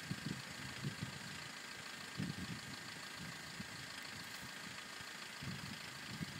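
Wind buffeting the microphone: irregular low rumbles and bumps over a steady faint hiss.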